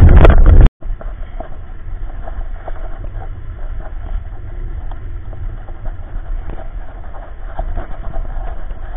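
Loud wind buffeting on a camera moving along with a pushed jogging stroller, cutting off abruptly under a second in. It gives way to a quieter, steady low rumble with small scattered clicks: the stroller's wheels and inline skate wheels rolling over asphalt.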